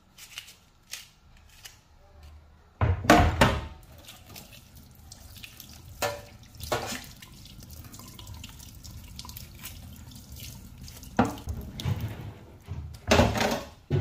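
Kitchen tap running into a stainless-steel sink as an onion and a knife are rinsed under the stream, with several louder splashing bursts.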